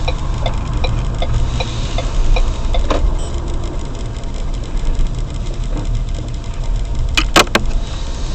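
Car running with a steady low engine and road rumble, its turn-signal indicator clicking about two and a half times a second for the first three seconds and then stopping. A few sharp knocks come about seven seconds in.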